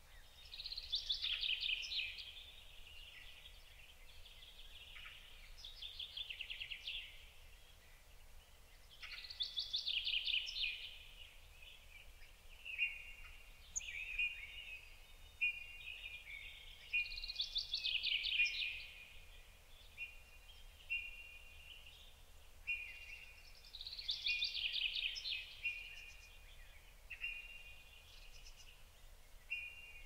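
Small songbirds singing: a song phrase of about two seconds, falling in pitch, comes back about five times. From about halfway on, short repeated high notes fill the gaps, over a faint low background noise.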